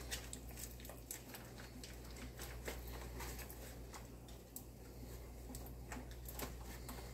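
Pot of thick, creamy potato soup simmering on the stove, giving faint, irregular little pops and ticks over a steady low hum.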